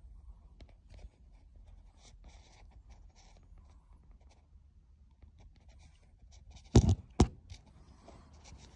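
Handling noise of a phone camera being moved about: soft rubbing and scraping, with two loud knocks close together, half a second apart, about seven seconds in.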